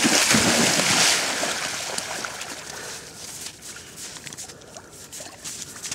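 A dog leaps into the water with a loud splash in the first second, followed by quieter sloshing and trickling as it swims out and other dogs wade through the shallows.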